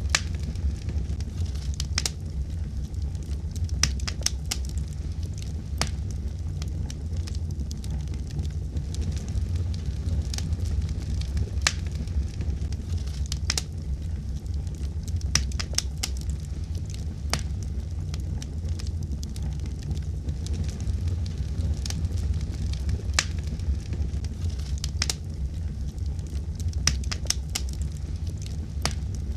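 Wood fire burning in a fireplace: a steady low rumble of the flames with irregular sharp crackles and pops, a few each second.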